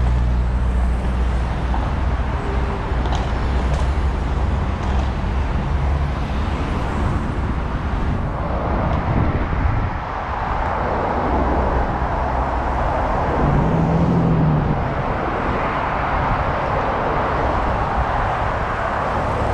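Road traffic: motor vehicle engines running with a steady low hum and tyre noise, with a vehicle passing close from about ten seconds in.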